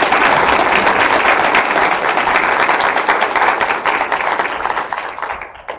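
Audience applauding: a steady round of clapping that tapers off near the end.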